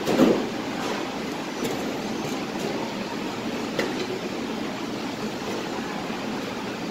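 Steady rushing noise of a commercial kitchen's exhaust hood and ventilation, with a short knock just after the start and a light click about four seconds in.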